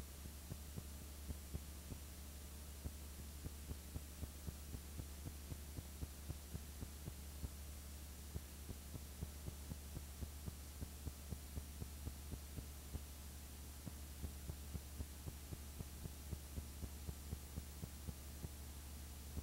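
Steady low electrical hum with a faint hiss and irregular small clicks, a few a second: the noise floor of a silent old film transfer with no recorded sound.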